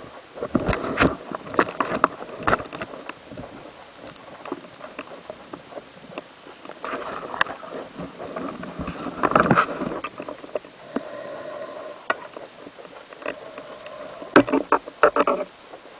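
Underwater sound picked up through a camera housing: irregular knocks and clicks with bursts of water rushing, from a speared carp on the shaft of a band-powered speargun being handled and pulled in. A faint steady hum rises briefly about two-thirds of the way through.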